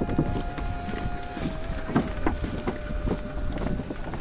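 Footsteps on a floating pontoon dock, about two a second, with wind on the microphone. A steady high hum runs underneath and drops slightly in pitch about a second and a half in.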